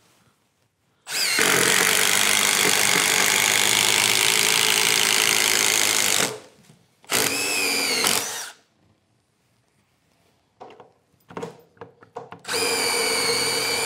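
Milwaukee M18 FUEL Gen 3 impact driver boring into wood with a 3/8-inch paddle bit: one long run of about five seconds, then a shorter run with a wavering pitch. A few light clicks follow, then another short run near the end.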